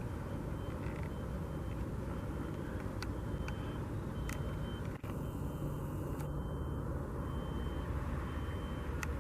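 Vehicle reversing alarm beeping at an even pace, about one beep every 0.8 s, over a steady low rumble, with a few sharp clicks.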